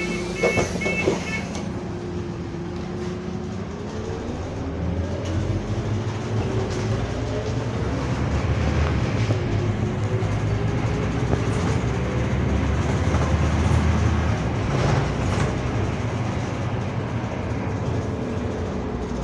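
Scania double-decker bus heard from the lower deck. Short repeated beeps at the start, then the engine's low rumble builds as the bus moves off. The cooling fan's whine rises slowly in pitch and then holds steady.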